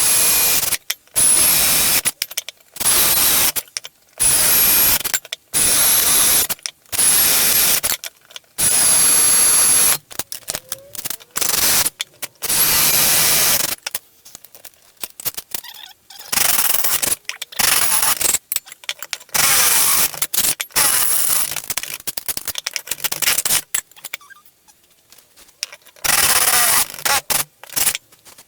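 Power drill run in repeated short bursts, the trigger squeezed and released again and again, its motor whine rising as it spins up each time: drilling 10 mm bolt holes.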